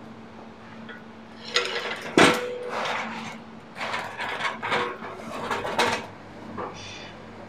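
Produce crates and a metal hand truck clattering as they are handled: a run of knocks and scrapes lasting about four seconds. The loudest is a sharp metallic bang about two seconds in that rings briefly. A low steady hum sits underneath.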